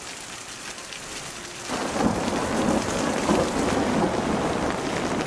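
Steady rain falling, splashing on wet ground and a puddle. About two seconds in, a low rumble sets in under it and continues.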